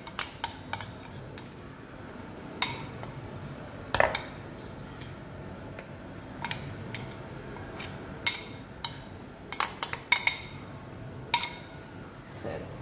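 Scattered light clinks and taps of kitchen utensils against bowls while thick batter is poured and scraped into a small stainless steel bowl.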